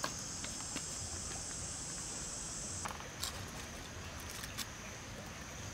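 Steady high buzzing of forest insects, narrowing to a thinner single-pitched buzz about three seconds in, with scattered sharp clicks and small knocks of dry twigs being handled and laid on charcoal.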